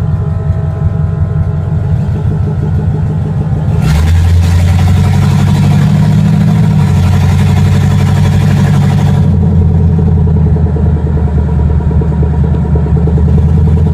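Engine of a 1955 Chevy panel truck running through open headers, heard from inside the cab as the truck pulls away. About four seconds in it gets louder and harsher under acceleration for several seconds, then eases back to a steady cruising note.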